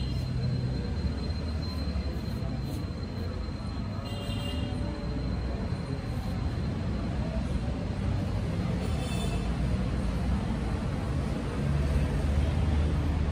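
Steady low rumble of outdoor background noise, with two short faint high-pitched sounds, about four seconds in and again about nine seconds in.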